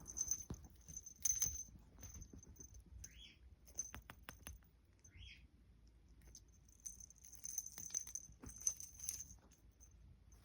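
Small jingle bell jingling in two bursts, one at the start and one from about seven seconds in, with light clicks and taps between and two short high rising squeaks in the middle.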